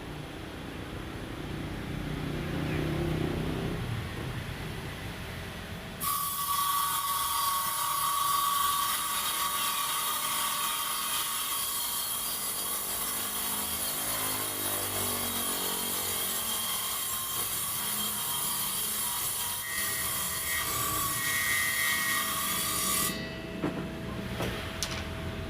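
Table saw running, then ripping a thin wooden strip: the blade bites into the wood about six seconds in, cuts steadily with a high whine for about seventeen seconds, and comes out of the cut near the end while the motor keeps running.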